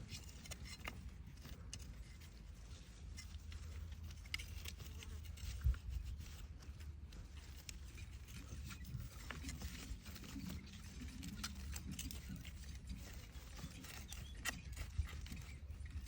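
Coriander being picked by hand: scattered small snaps and rustles of stems and leaves, with one sharper knock about six seconds in, over a low steady rumble.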